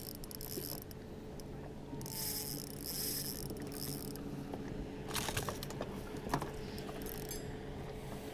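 Spinning reel being cranked against a hooked fish, its gears whirring, with a steady hum underneath and a few sharp knocks past the middle.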